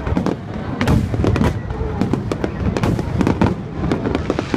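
Large high-altitude aerial fireworks display: shells bursting one after another, several sharp bangs and crackles a second over a continuous low rumble.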